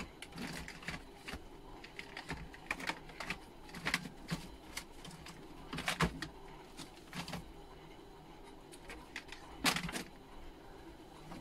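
Scattered light clicks and taps at irregular intervals, like small objects being handled, with the sharpest ones about halfway through and shortly before the end.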